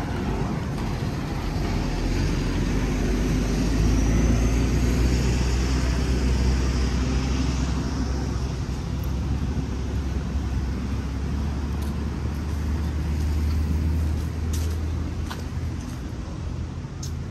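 Road traffic: a motor vehicle's engine running close by, a steady low hum that swells through the middle and eases off near the end, with a few faint clicks.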